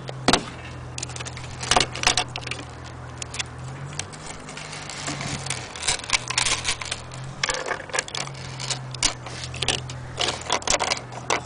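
Irregular clicking and jangling rattles, some loud and in clusters, from an antique Black Forest cuckoo clock being handled, with its loose metal parts knocking. A steady low hum runs underneath.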